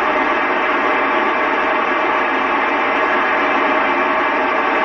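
Steady radio static from a VHF FM transceiver tuned to the ISS downlink on 145.800 MHz: the channel is open with no voice on it, and a faint hum runs through the hiss.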